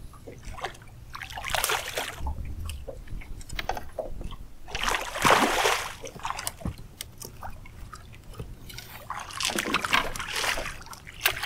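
Water splashing in three bursts, the loudest about five seconds in, as a hooked catfish is brought in at the boat.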